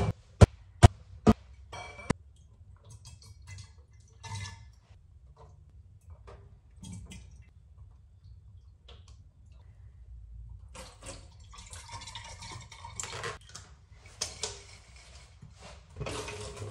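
Glass bottles clinking against each other, five sharp clinks in the first two seconds, then sanitizer solution pouring and splashing as it is run into the glass bottles and emptied out into the sink, heaviest in the last six seconds.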